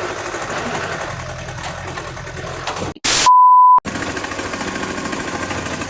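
Diesel engine of a JCB 3DX backhoe loader running. About three seconds in it is cut by a short burst of hiss and then a steady high beep lasting about half a second, the loudest sound, before the engine is heard again.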